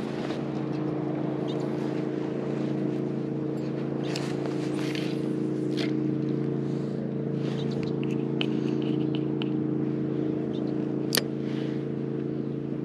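MotorGuide Xi3 electric trolling motor running at a steady speed, a constant hum, with a few light clicks and one sharp click about eleven seconds in.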